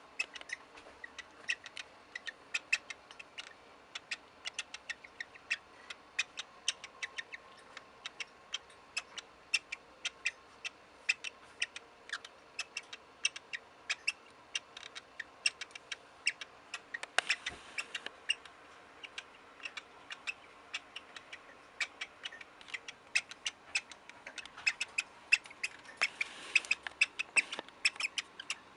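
Cockatiel making a creaky, quack-like sound: rapid short squeaky clicks, several a second, with denser runs about two-thirds of the way through and near the end.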